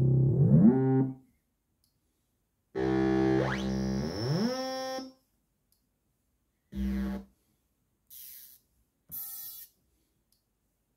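Korg Kaossilator Pro+ synthesizer bass sounds played from its touch pad: a few separate notes with silence between them, the first two sliding upward in pitch, then a short low note and two faint, short hissy sounds.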